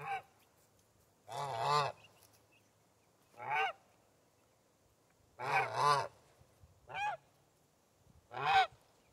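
Domestic geese honking: about seven loud calls, one to two seconds apart, a couple of them drawn out and two in quick succession about halfway through.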